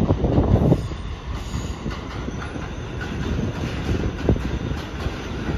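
New York City Subway train approaching along the elevated track, a steady low rumble of wheels on rail with a few knocks from the track joints. The rush of sound is louder in the first second.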